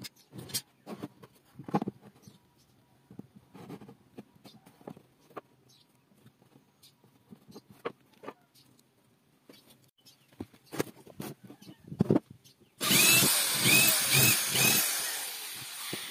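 Wooden boards and frame pieces being handled and set down on a wooden workbench, with scattered light knocks. About thirteen seconds in, a power tool starts suddenly and runs loud for about three seconds, fading near the end.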